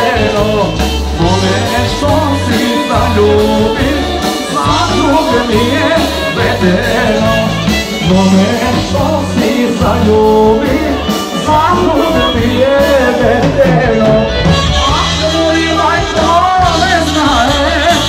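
Live band playing amplified folk dance music for a circle dance, a steady bass line under the melody.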